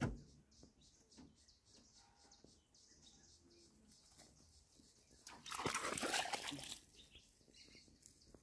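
African wild dogs close by: a sharp knock at the start, faint scattered ticks, then a loud breathy rush lasting about a second and a half midway, and faint high chirps near the end.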